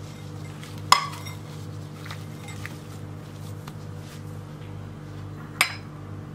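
Two sharp clinks of crockery against a ceramic bowl, one about a second in and one near the end, over a steady low hum.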